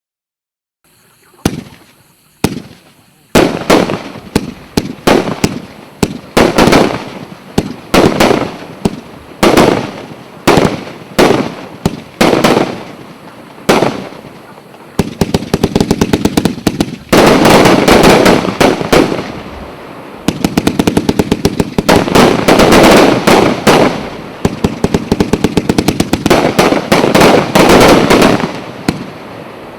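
A 250-shot fireworks cake ('Премьера', 1" and 1.25" tubes) firing. It opens with single shots about a second apart, then from about halfway through fires dense rapid runs of shots, each run lasting a few seconds.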